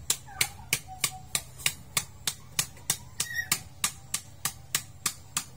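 Knife blade chopping fish on a wooden cutting board, sharp even strokes about three a second.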